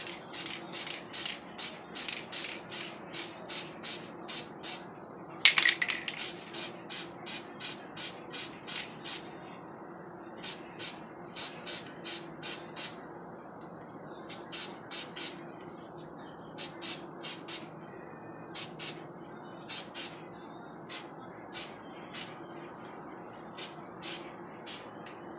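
Krylon Short Cuts aerosol spray-paint can hissing in short, quick spurts, about two a second, in runs broken by brief pauses, with one longer, louder blast about five seconds in. These are light coats of yellow laid over a vinyl flame stencil on a tumbler.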